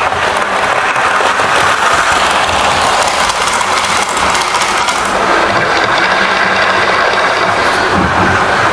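Model railway locomotive running along the track: a steady whirr and rattle from its motor and wheels on the rails.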